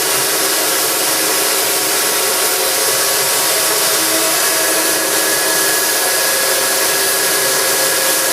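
Burr King Model 760 three-wheel belt grinder running, its abrasive belt grinding a workpiece against the contact wheel: a steady, loud hiss over a faint hum, with a thin higher tone joining about halfway in.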